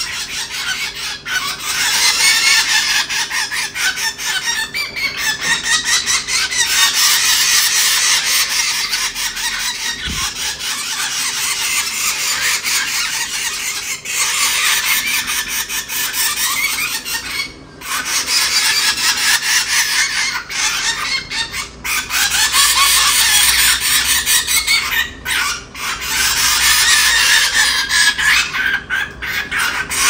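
Fledgling birds giving loud, harsh begging calls almost without a break, with only a few brief pauses. They are begging to be fed.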